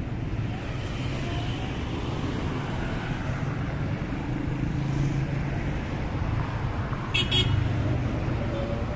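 Busy street traffic with engines running steadily and a short, high-pitched vehicle horn toot about seven seconds in.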